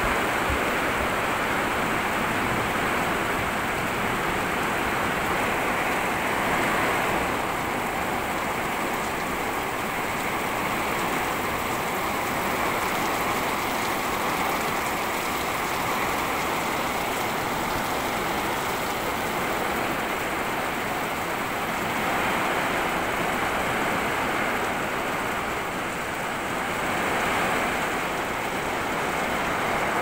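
Heavy monsoon rain falling, a dense steady hiss that swells a little now and then.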